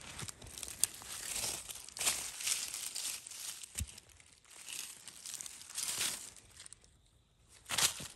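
Dry leaf litter crunching and rustling in a series of short bursts about a second apart, the loudest near the end.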